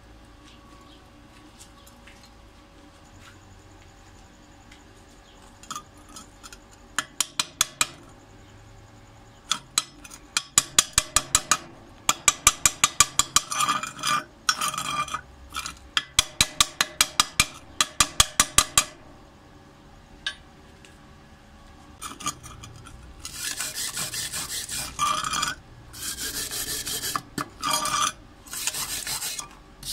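A steel chipping hammer tapping slag off fresh stick-weld beads on steel plate in quick bursts of about five strikes a second, then a steel wire brush scrubbing the welds in long strokes over the last several seconds: post-weld slag removal.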